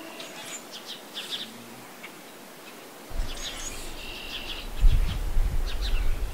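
Songbirds chirping and trilling. About three seconds in, a low rumble of wind buffeting the microphone sets in and grows louder.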